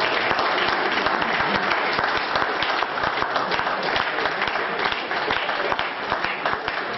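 A small crowd applauding, many hands clapping at once, easing off slightly near the end.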